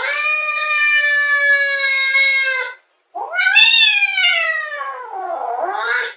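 Domestic cat giving two long, drawn-out meows. The first is held on a nearly steady pitch. The second rises and then falls, wavering and turning up again just before it ends.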